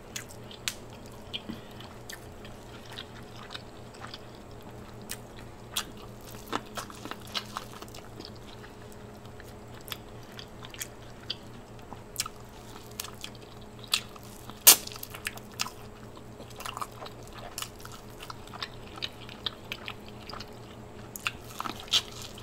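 Close-miked eating: biting into and chewing corn on the cob, with many short, sharp, wet clicks and smacks. The loudest comes about two thirds of the way in.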